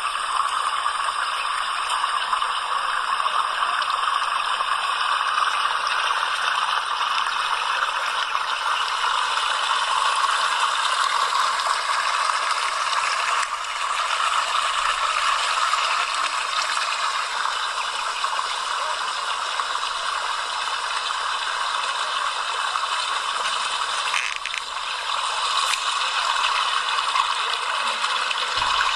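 Running water rushing and splashing steadily.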